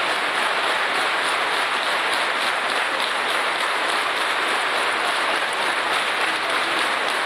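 Steady, sustained applause from a large crowd of girls clapping together.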